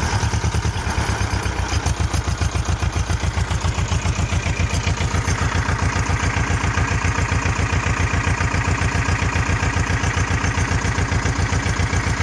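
Ursus C-330 tractor's two-cylinder diesel idling steadily, exhausting through a car's straight-through bass muffler and a round vertical stack. It makes an even, rapid exhaust beat with a deep, aggressive tone.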